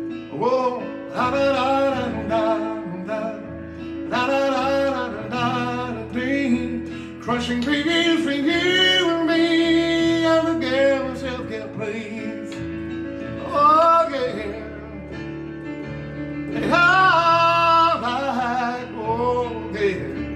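A man singing lead vocals over instrumental backing, with a few long held notes.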